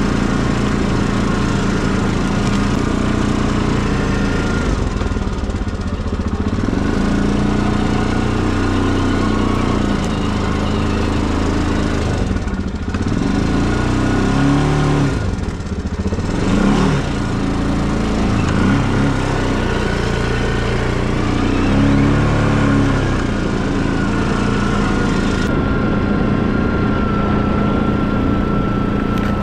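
Quad bike (ATV) engine running while riding, its pitch rising and falling with the throttle, changing most around the middle.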